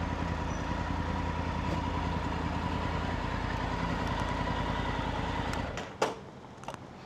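Motorcycle engine idling steadily, then stopping almost six seconds in, followed by a single sharp click.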